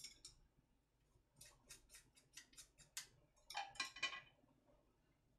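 A utensil clicking lightly against a stainless steel mixing bowl while seasoned bean sprouts are tossed: a quick run of faint clicks, then a brief busier patch of clicks and scraping about four seconds in.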